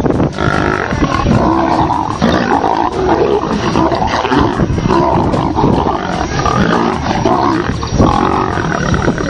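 Lions growling and roaring, several voices overlapping without a break.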